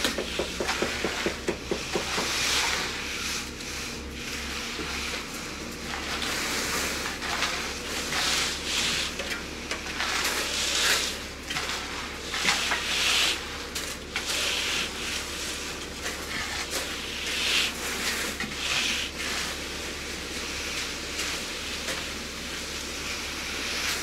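Hand tools scraping and swishing through wet concrete in irregular strokes, over a steady machine hum.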